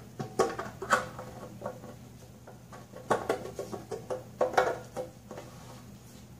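Several light metallic taps and clinks in small groups, a few of them ringing briefly, over a faint steady shop hum.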